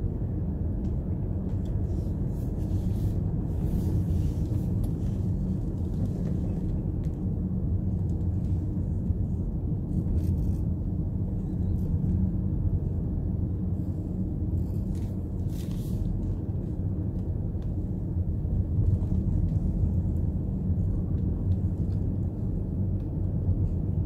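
Steady low rumble of a car driving along a road, engine and tyre noise running evenly throughout.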